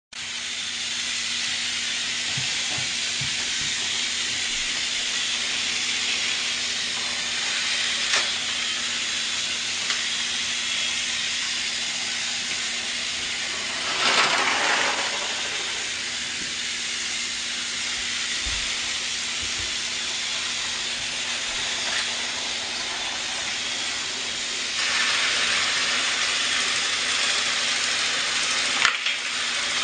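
Motorized toy trains running on plastic track: a steady whirring hiss over a steady low hum. It swells briefly about halfway through, grows louder near the end, and there are a few light clicks.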